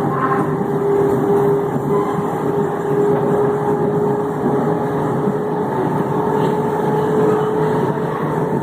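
Electric multiple unit TUE 1726 running, its traction motors growling with a steady held tone over the rumble of the train's running gear.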